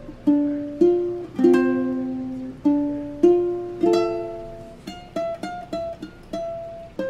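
Ukulele background music: plucked notes and chords, each struck and then fading, with a quicker run of short notes about two-thirds of the way through.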